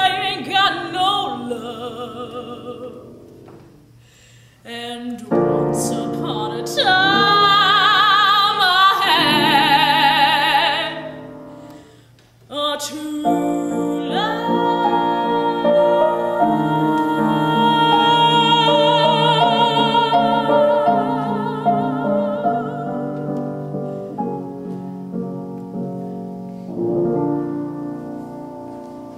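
Female classical singer singing a song with strong vibrato over piano accompaniment. The loudest part is a long high held note in the middle. After that the piano's repeated chords carry on under the voice and the piece ends quietly.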